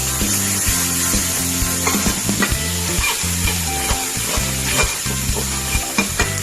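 Food stir-frying in a hot pan: a steady sizzle with repeated sharp clicks and scrapes of the spatula against the pan.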